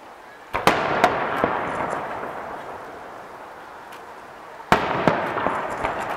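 Aerial firework shells bursting: a sharp bang about half a second in, followed by a few smaller cracks and a fading tail, then a second bang near the end with its own cracks and fading tail.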